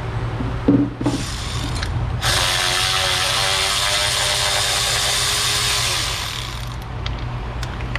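A cordless power tool, such as an electric ratchet, spinning a fastener under the hood of a Dodge Ram pickup. There is a brief run about a second in, then a steady run of about four seconds that winds down near the end.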